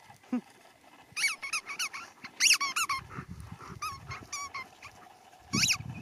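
A dog whining in short, high-pitched squeaky cries that bend in pitch, coming in little runs of two to four, about a dozen in all. There is a low rustling bump near the end.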